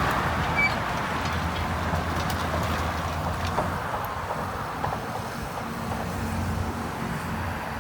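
Diesel engine of heavy earthmoving equipment running steadily under work, with a few faint knocks.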